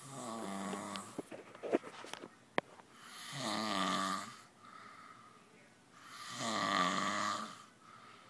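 Snoring: three long snores about three seconds apart, each swelling and fading. A few sharp clicks or taps fall between the first two.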